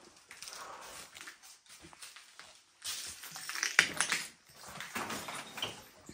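Crunching footsteps and rustling across a floor strewn with debris, with scattered sharp knocks; the loudest knock comes about four seconds in.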